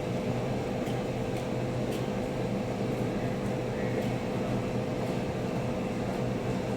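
Steady mechanical drone with a constant held hum, typical of airport machinery heard from inside the terminal.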